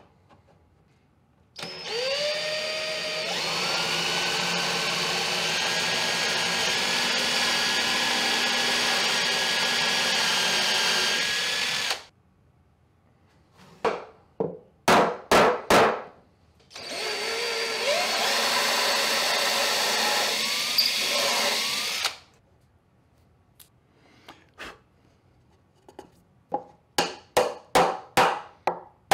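A cordless drill spins up and runs steadily for about ten seconds, then runs again for about five seconds after a few sharp clicks, its pitch sagging briefly near the end under load. Near the end, a small hammer taps rapidly, about four light strikes a second, driving a wooden peg into a hole in plywood.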